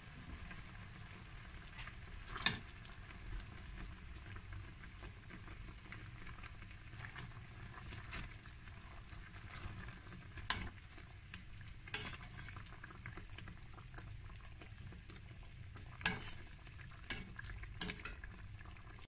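Koesisters bubbling in a pan of boiling sugar syrup spiced with cinnamon sticks, cardamom pods and naartjie peel, making a steady sizzling fizz. A metal slotted spoon clinks sharply against the pan several times as the koesisters are lifted out.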